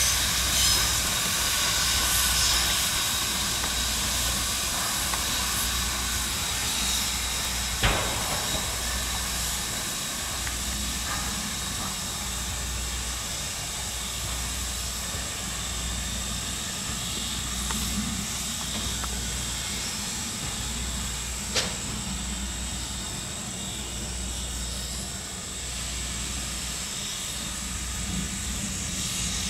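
Norfolk & Western 4-8-0 steam locomotive #475 hissing steam as it slowly pulls away, the sound gradually fading. Two sharp knocks come through, about 8 and 21 seconds in.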